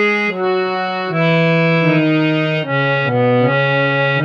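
Harmonium playing a melody of held reed notes, stepping from note to note and dipping lower about three seconds in before rising again near the end.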